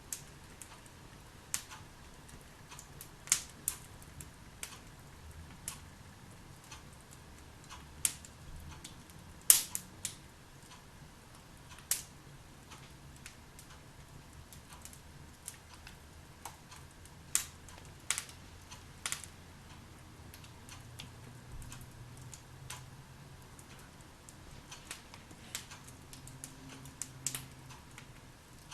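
Wood fire burning in a fireplace: irregular sharp crackles and pops, the loudest about a third of the way in.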